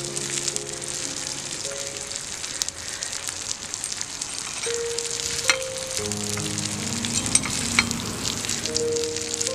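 Marinated whole pomfret sizzling steadily as it shallow-fries in hot oil in a miniature iron kadai, with a small metal spatula clicking against the pan a few times. Soft background music plays underneath.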